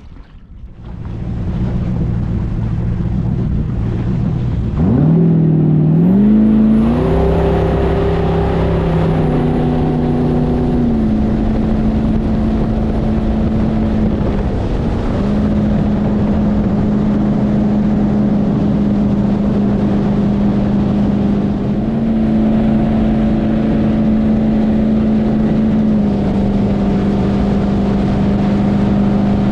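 Jet boat's LS3 V8 engine running at low revs, then revving up about five seconds in, climbing in pitch, and holding a steady high-speed run. The pitch steps slightly up and down as the throttle is adjusted.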